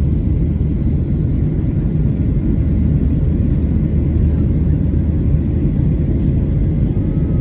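Steady low rumble of a Boeing 737-700's CFM56 jet engines and airflow, heard inside the passenger cabin.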